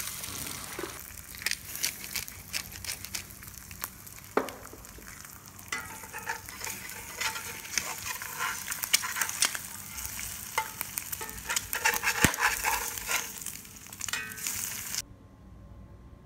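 Eggs frying in a cast iron skillet over charcoal: a steady sizzle full of crackling pops, with a metal spatula scraping under the eggs. It cuts off suddenly about a second before the end.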